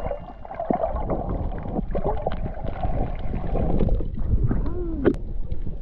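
Water sloshing and gurgling, with bubbles popping around a camera held at the water's surface while snorkelling.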